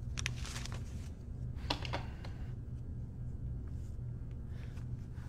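Quiet, low, sustained background music under the scene, with a few light rustles and clicks in the first two seconds.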